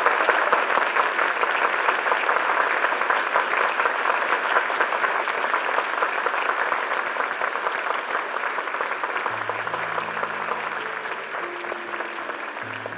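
Theatre audience applauding, a dense steady clapping that slowly fades. Low, sustained music notes come in about nine seconds in.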